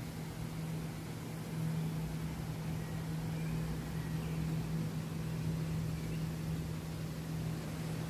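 A steady low hum over an even hiss of running water, the constant sound of a home waterfall feature.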